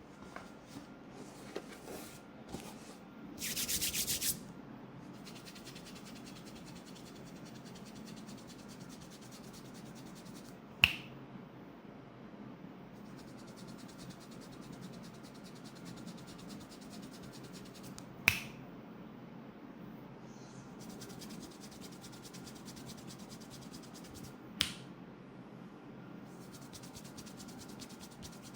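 Hands rubbing steadily over a person's hair and scalp during a head massage. There is a brief loud hiss about three seconds in, and three sharp snaps several seconds apart.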